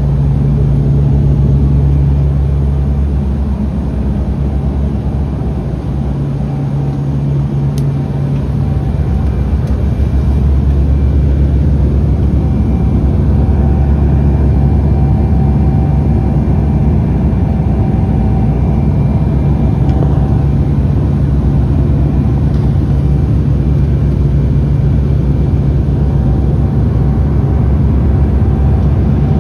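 Cabin noise of a Dash 8 turboprop airliner in flight: the engines and propellers make a steady drone. A deep hum slowly swells and fades, with fainter steady whining tones above it.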